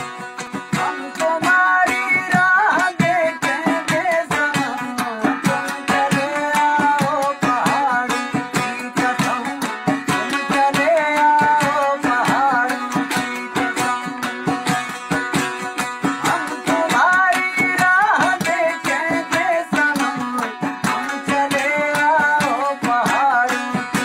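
Background music in a South Asian style: plucked strings over a steady drone, a fast even beat of hand drums, and a melody line that slides between notes. It swells in over the first couple of seconds.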